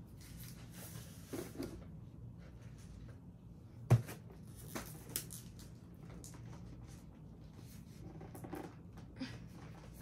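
Soft clicks and rustles of hands working a plastic action figure and its accessories, with one sharp snap about four seconds in and a few lighter ticks after.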